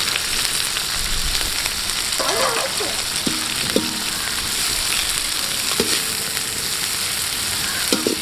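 Sliced onions and green chillies frying in hot oil in an aluminium kadai, stirred with a perforated metal ladle that knocks against the pan a few times.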